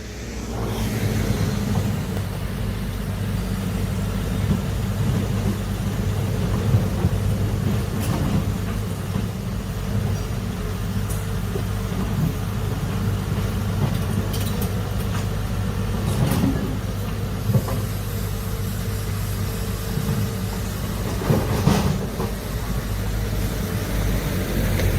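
Heavy construction machine's large diesel engine running steadily, with a few short knocks about eight, fourteen, sixteen and twenty-one seconds in.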